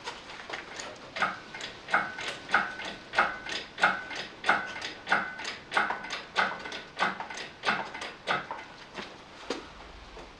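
Engine hoist's hydraulic jack being pumped by hand: a steady run of click-and-squeak strokes, about one and a half a second, starting about a second in and stopping near the end.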